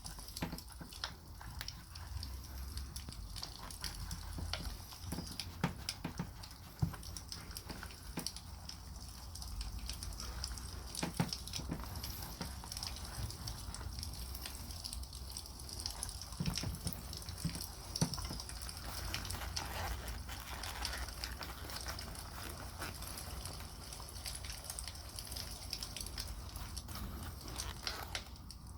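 Wood campfire crackling, with scattered sharp pops over a steady low rumble and hiss.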